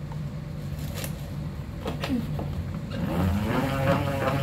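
Plastic salad spinner drying washed salad greens: a couple of clicks as the lid is handled, then about three seconds in the basket is spun up by the hand crank on the lid, a rising whir that settles into a steady whirring rattle.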